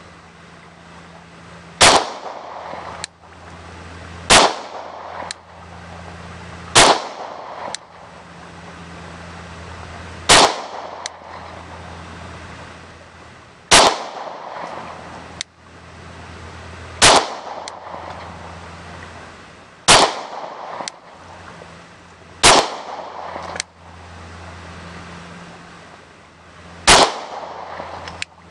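Glock 23 .40 S&W pistol firing nine single shots at an unhurried pace, about every two and a half to four seconds, each with a short echo trailing off. Fainter clicks follow several of the shots, over a steady low hum.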